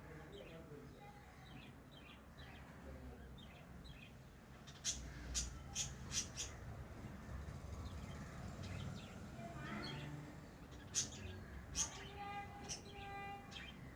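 Pet lovebirds chirping: a quick run of about five sharp, high chirps around five seconds in, a couple more near eleven seconds, then steadier chattering calls near the end.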